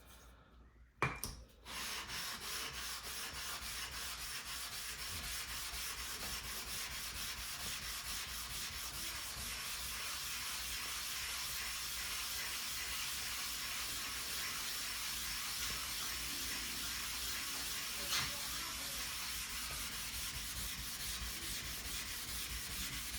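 Coarse side of a flattening plate rubbed back and forth over a wet Shapton Kuromaku ceramic whetstone, a steady gritty scraping as the stone's surface is lapped flat. It starts after a short knock about a second in.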